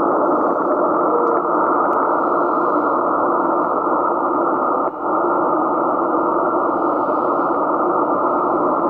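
Icom IC-7600 shortwave transceiver's speaker audio on the 80 m band: steady static hiss through the receiver's narrow filter, with a brief dropout about five seconds in.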